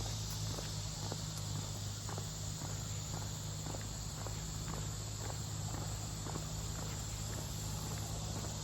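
Footsteps on a dirt trail, about two steps a second, over a steady high-pitched insect chorus. A low steady hum runs underneath.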